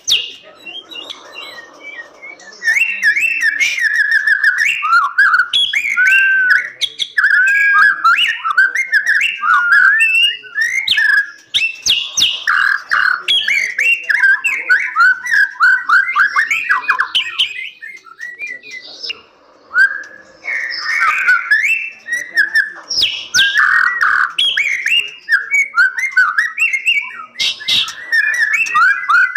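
White-rumped shama singing a loud, varied song of rapid whistled phrases, with a couple of brief pauses.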